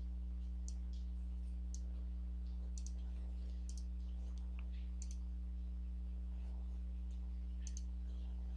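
Several light computer-mouse clicks at irregular intervals over a steady low electrical hum.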